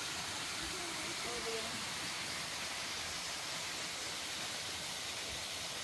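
Steady rushing hiss of a narrow waterfall's water falling down a rock face.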